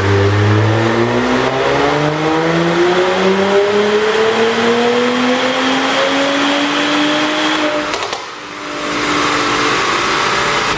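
Mercedes-AMG GLC 43's twin-turbo V6 accelerating, its note climbing steadily in pitch for about eight seconds. The throttle then closes sharply, the sound dips suddenly, and the engine settles back to a lower, rougher note.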